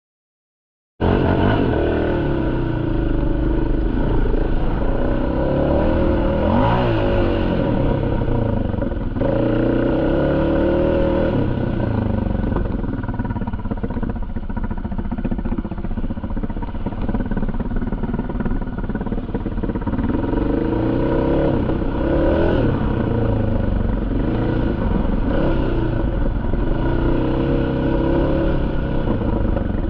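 ATV engine running as it is ridden along a rough dirt trail, the revs rising and falling several times as the throttle is worked. It cuts in suddenly about a second in.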